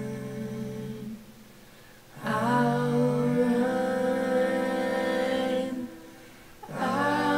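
Intro song of slow vocal music: voices holding long, steady chords in phrases, broken by two short drops about a second in and about six seconds in.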